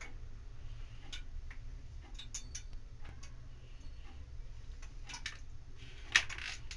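Irregular light clicks and taps of kitchen tools on a rolling board while dough is rolled and cut, with a sharper knock about six seconds in, over a steady low hum.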